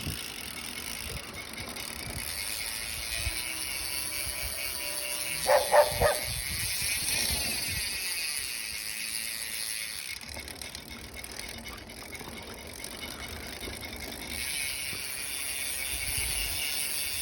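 Bicycle rear freehub ratcheting as the wheel freewheels, a steady fast high buzz. About five and a half to six seconds in come three short, loud, pitched sounds.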